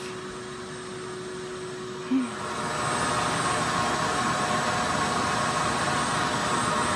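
Water-extraction vacuum ('sucker') and drying fans running on a flooded floor: a steady drone that gets louder about two and a half seconds in and then holds steady.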